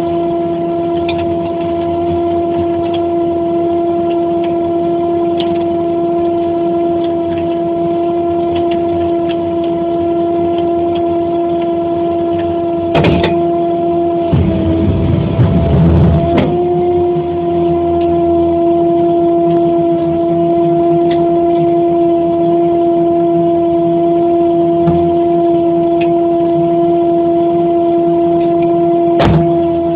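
Crane truck running with a steady, single-pitched droning hum as it hoists a well pump's drop pipe, the pitch sagging briefly about halfway through. A few sharp knocks sound over it, once about halfway and again near the end.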